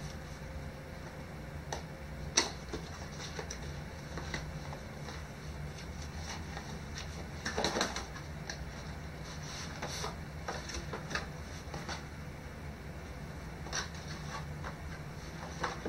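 Cardboard packaging handled by hand: scattered light clicks, knocks and rustles as a small accessory box is opened and its black insert slid out, the busiest stretch about halfway through, over a steady low hum.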